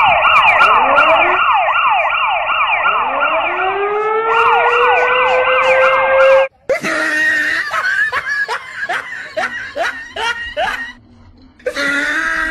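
Several sirens wailing together in a fast, repeating yelp, one of them winding up in pitch, loud, cutting off abruptly about six and a half seconds in; voices follow.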